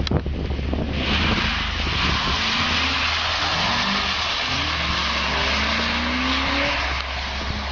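BMW E34 530i's V8 engine revving up several times in rising sweeps, starting about two seconds in, as the car drifts, over a steady hiss of tyres on the loose, wet surface. A low wind rumble on the microphone runs underneath.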